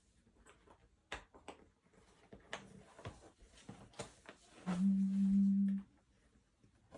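Jigsaw puzzle pieces clicking and tapping on a table as they are handled and tried. About two thirds of the way through, a steady low hum holds for about a second and is the loudest sound.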